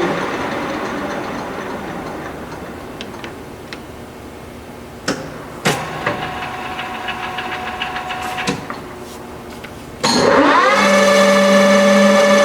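Engine lathe: the drive dies away after coasting down, a few sharp clicks of the controls follow, then about ten seconds in the spindle drive starts with a quick rising whine and settles into a loud, steady gear whine.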